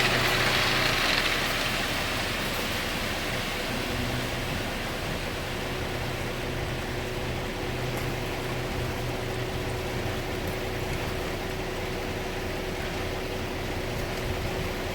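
Concrete mixer truck running: a steady engine hum under an even rushing noise, with a louder hiss that fades away over the first couple of seconds.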